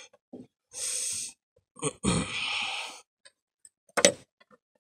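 A man breathing out hard with effort, two heavy sighs or grunts as he strains, then a single sharp click about four seconds in.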